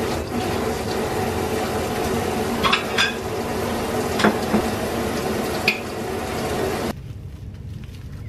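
A metal spoon scooping and scraping thick Greek yogurt into a hollowed-out peach, with a few sharp clinks of the spoon. About seven seconds in it cuts to a quieter crinkling of plastic wrap being pressed around the filled peach.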